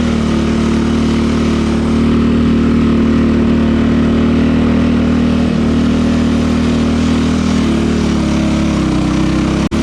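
Riding lawn mower's small engine running close to the microphone at a steady speed, its pitch easing slightly lower near the end.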